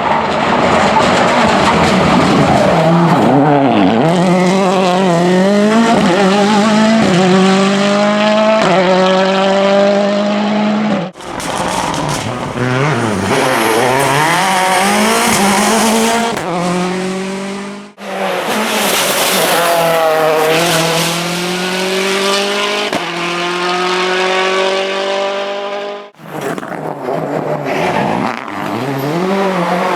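Rally cars at full throttle on a special stage, engines revving hard and climbing through the gears, the pitch rising and dropping back at each upshift. The sound breaks off abruptly about 11, 18 and 26 seconds in and another car takes over each time.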